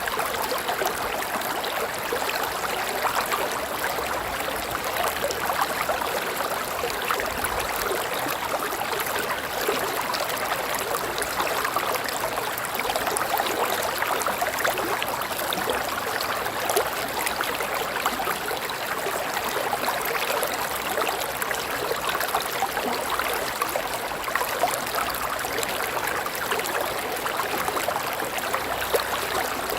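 River water flowing steadily, an even rushing with fine splashes and gurgles throughout.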